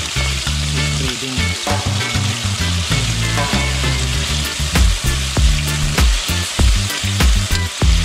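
Conch meat sizzling as it stir-fries in a metal wok, with a metal ladle scraping and knocking against the pan; the knocks come louder and more often in the second half.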